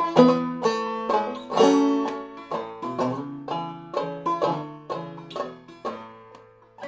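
Five-string banjo played clawhammer style in double B-flat tuning (double C tuned a tone lower): a waltz melody of picked notes and brushed strokes, each ringing and fading. The playing softens near the end of a phrase.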